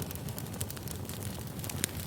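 Campfire burning: a steady low rumble of flames with scattered crackles and pops from the burning wood.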